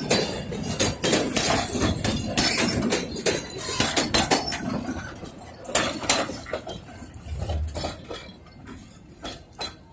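A quick, irregular run of clanks and knocks that thins out and grows quieter over several seconds.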